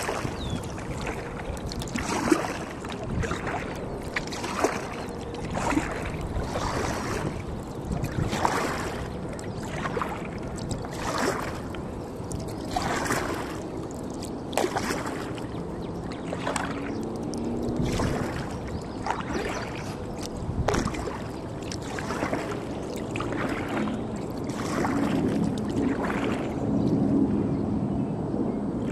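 Sea kayak paddle strokes dipping and splashing in calm water in a steady rhythm, about one stroke a second.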